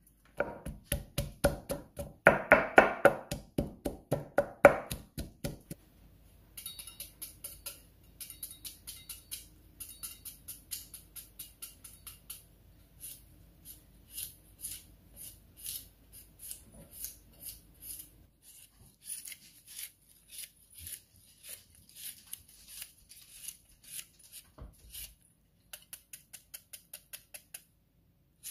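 Kitchen knife repeatedly hacking into and shaving a cucumber held in the hand, shredding it Thai-style: short crisp chopping strokes, a few a second, with brief pauses. Louder, faster strokes fill the first six seconds.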